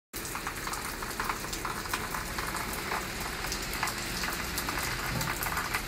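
Wet falling snow pattering on surfaces: a steady hiss scattered with many small ticks and drips.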